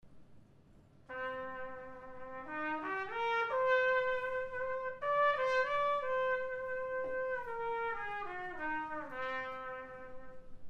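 Unaccompanied trumpet playing a slow, smooth phrase. It comes in about a second in on a low note, climbs step by step to a held high note, then steps back down to end on the low note.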